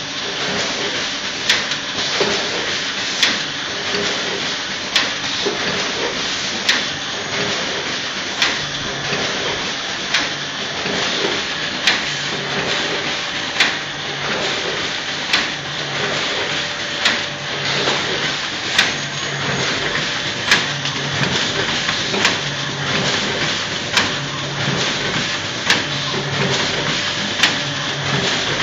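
Multihead weigher and horizontal pouch bagging machine running while packing small monosodium glutamate granules: a steady mechanical hum and rattle with a sharp clack repeating regularly, about every 1.7 seconds, at each packing cycle.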